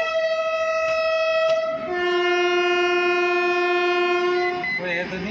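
Horn of a Plasser & Theurer track maintenance machine sounding two long steady notes, a higher one for about two seconds and then a lower one for nearly three seconds. Two light clicks come during the first note.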